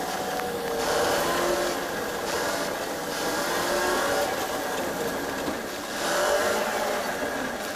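City bus engine running as the bus drives in traffic, heard from inside the cabin, its pitch slowly rising and falling with the revs over a steady hiss of road noise.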